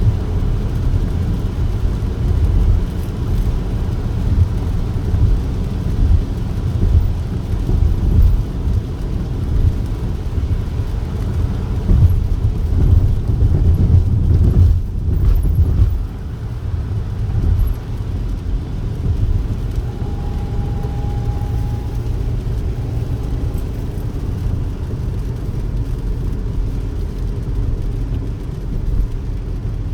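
Steady low rumble of a car on the move, with road and engine noise throughout. The rumble drops in level about halfway through, and a brief high tone sounds a few seconds later.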